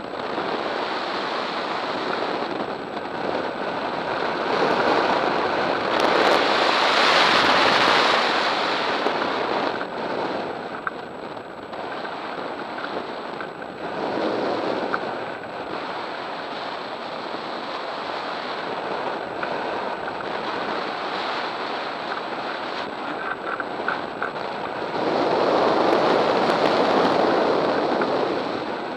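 Airflow rushing over the microphone of a camera mounted on a hang glider in flight. It swells in gusts: loudest for a few seconds about six seconds in, again briefly around fourteen seconds, and again near the end.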